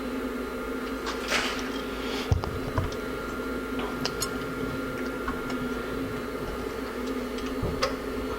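Light clicks and a couple of short scraping rustles from small carburetor parts being handled, over a steady hum. There is a thump a little over two seconds in.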